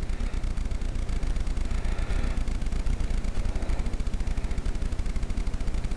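A steady low mechanical rumble with a rapid flutter, like a motor running in the background.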